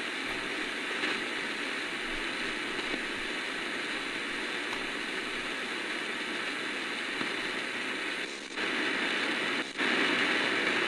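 Static hiss from the RRS RS-661BT portable radio's speaker on the shortwave band, with no station coming through. The hiss dips briefly twice near the end.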